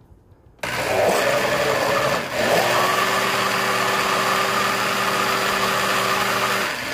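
Countertop blender switched on about half a second in, running steadily on thick flourless chocolate-coconut cake batter and settling into a steady hum after about two seconds. It is then switched off near the end and winds down. This is a short burst of blending, just long enough to mix in the baking powder.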